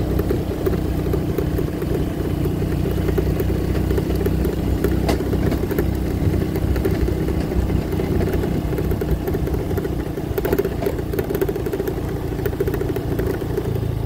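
Small motor scooter's engine running steadily while riding, with some light rattling.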